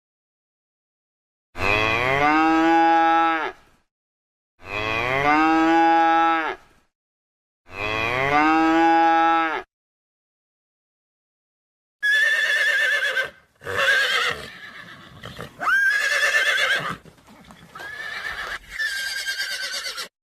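A cow mooing three times, each a rising call about two seconds long and alike, as if the same moo is repeated. After a short pause a horse neighs, several shaky, quavering whinnies.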